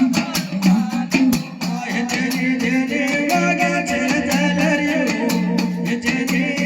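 Live Gujarati dakla devotional music: rapid drum strokes in a steady rhythm, joined about two seconds in by a singer's held, wavering voice.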